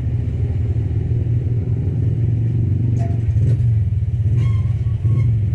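A steady low mechanical hum, with a few faint short tones about four and a half seconds in.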